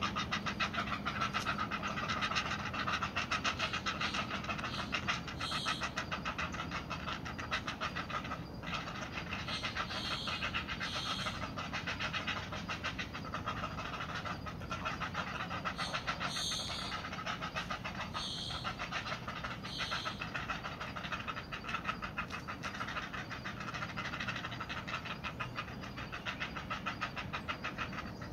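Great blue heron chicks begging at the nest: a rapid, steady ticking chatter that runs on without a break, with a few brief louder, harsher calls breaking in.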